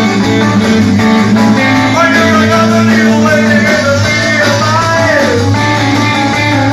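Live rock band playing, led by an electric guitar bending notes over a steady bass line, with a downward guitar slide about five seconds in.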